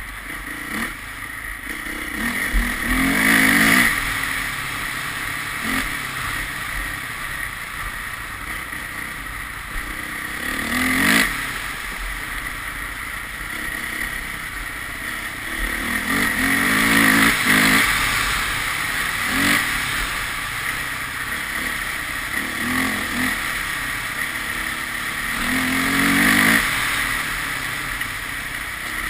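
A vehicle engine under way, rising in pitch and falling back four times as it accelerates and eases off, between stretches of steadier running.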